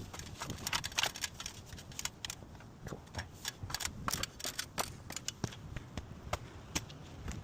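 Irregular light clicks and taps of gear being handled and set up.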